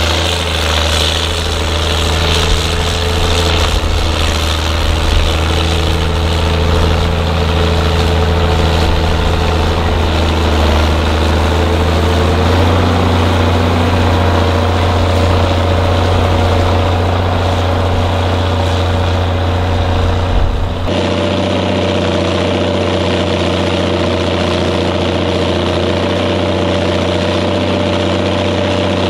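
Ford TW25's turbocharged six-cylinder diesel engine running steadily under heavy load, pulling a Flatlift subsoiler through the ground. The tone changes about 12 seconds in and again near 21 seconds.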